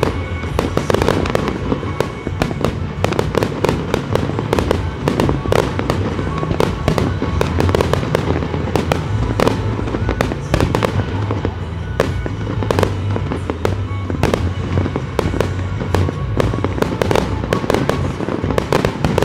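A rapid barrage of fireworks, a star mine, with many shells bursting and crackling one after another in a dense, continuous series of bangs, over music playing.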